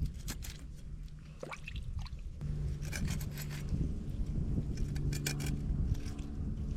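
A knife cutting up a bluegill for catfish bait, with a few separate runs of short scraping, sawing strokes.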